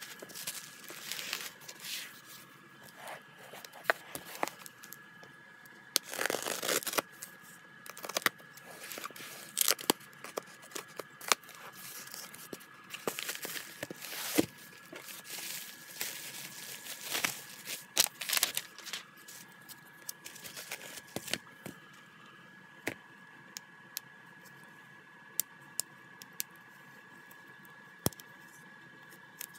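Plastic packaging and bubble wrap handled and torn open, with irregular bursts of crinkling and tearing. In the last part only sparse small clicks are left as the album's shrink wrap is picked at with a fingernail.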